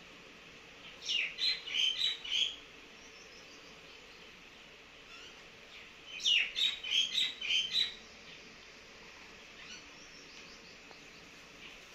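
Small bird chirping: two bursts of five or six quick, high chirps, the first about a second in and the second about six seconds in, over a faint steady background hum.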